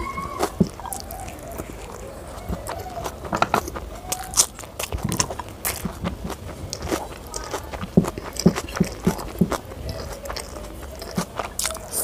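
Close-miked eating sounds: a person chewing fried rice with lips smacking, many short wet clicks throughout, as fingers gather the last grains from the plate.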